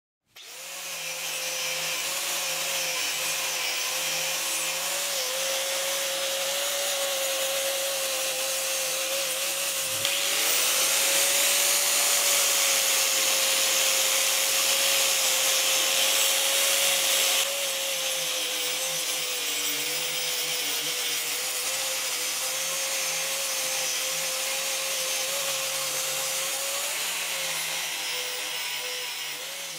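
Electric angle grinder running with an abrasive disc against the metal housing of an old drill: a steady motor whine under a grinding hiss. The hiss grows louder and harsher for about seven seconds in the middle.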